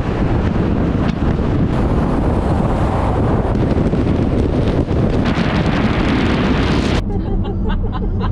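Wind rushing over the microphone of a camera outside a car driving at highway speed, mixed with road noise. About seven seconds in it cuts to the quieter hum of the car's cabin.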